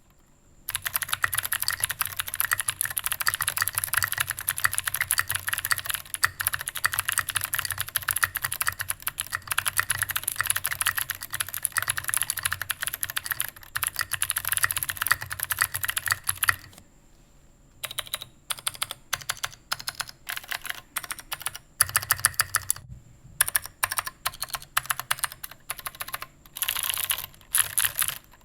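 Typing on a Matrix 2.0 mechanical keyboard fitted with clicky Cherry MX Blue switches. Fast, unbroken keystrokes run for about sixteen seconds, then after a short pause the typing comes in shorter bursts.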